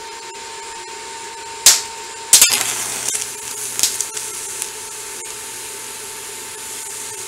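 TIG welding arc struck about two seconds in with a sharp crackle, then burning with a steady hiss and buzz as a tack weld is laid on a bracket. A faint steady hum from the welder comes before the arc starts.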